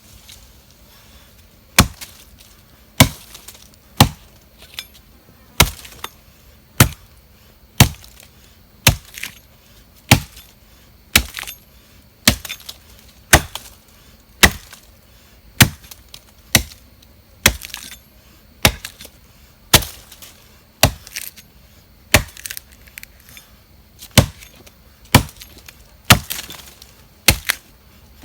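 Hand tool chopping into the wood of a hollow tree stump to split it open and reach a wild bee nest: sharp, loud strikes at a steady pace of about one a second, starting about two seconds in.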